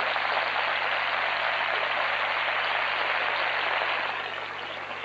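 Theatre audience applauding: dense, steady clapping that dies down about four seconds in.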